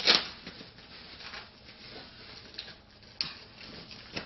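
Handling noise of a stand part being pulled out of its packaging: a sharp knock right at the start, faint rustling, and a smaller click about three seconds in.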